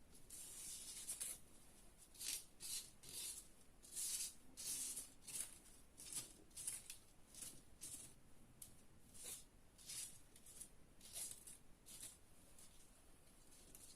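Paper being folded and creased by hand: a string of short, faint, high rustles and swishes, about one or two a second.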